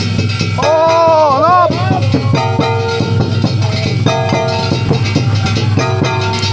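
Japanese Gion festival music (gion-bayashi) playing: struck metal gongs ring in a steady rhythm about once a second over drumming, with a single wavering pitched phrase about a second in.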